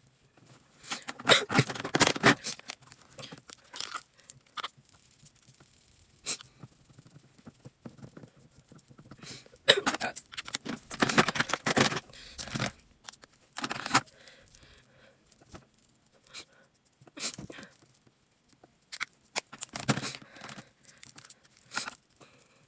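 Makeup being handled and applied: irregular bursts of rustling and brushing from brushes and compacts, with a few sharp clicks and taps from cases and containers.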